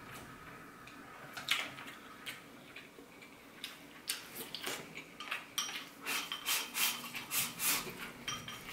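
Chopsticks clinking and scraping against a small glass sauce bowl: a few separate clicks at first, then a quick run of clicks in the second half.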